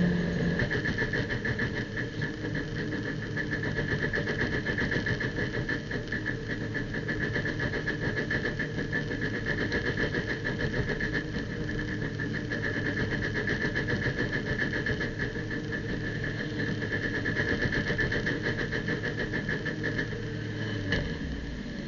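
Abarth race car's engine heard from inside the cockpit. It is briefly at high revs, then settles to a steady lower drone at low pit-lane speed in second gear, with a steady high whine over it. Near the end there is a click and the engine note drops as the car slows.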